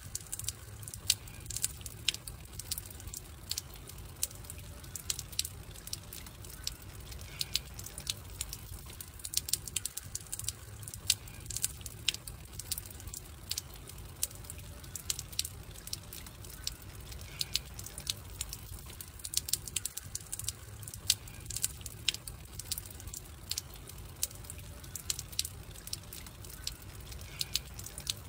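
Wood campfire crackling: irregular sharp pops and snaps over a low, steady rumble of burning.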